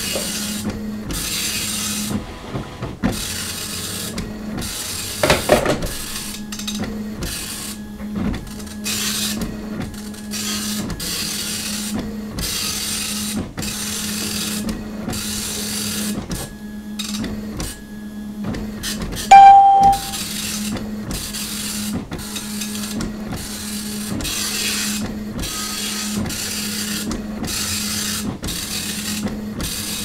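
Dot-matrix printer printing, its head buzzing across in short passes one after another over a steady low hum. A short, loud beep sounds about twenty seconds in.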